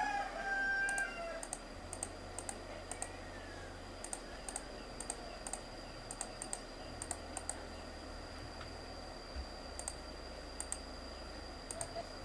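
Computer mouse button clicking repeatedly, short sharp clicks at an uneven pace of about two a second with a pause of a couple of seconds in the middle, as keys are clicked one by one on an on-screen keyboard. A faint steady high whine sits underneath.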